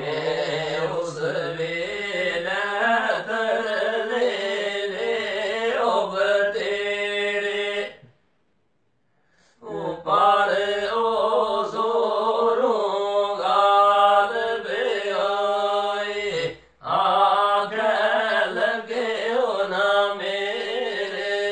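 Unaccompanied men's voices singing a Pahari kalam, a devotional folk poem, in long drawn-out notes that wind up and down. The singing breaks off into silence for about a second and a half some eight seconds in, and dips briefly again a few seconds later.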